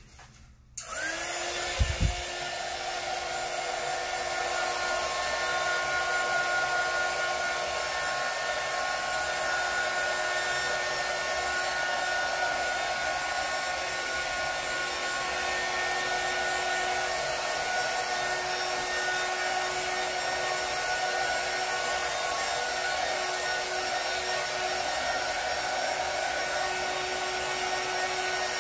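Electric heat gun switched on about a second in, its fan spinning up and then running steadily with a whine, as it is played over wet acrylic pour paint. A brief low thump about two seconds in.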